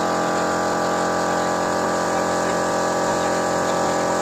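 A car engine running steadily, with an even, unchanging hum.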